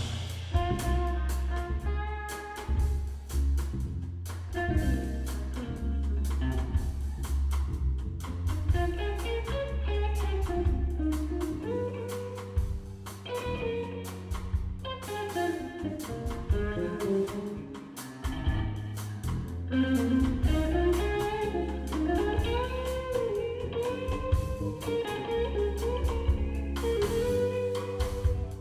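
Live instrumental groove from an electric guitar trio: the electric guitar plays a melodic lead line with bent notes over steady electric bass notes and a drum kit.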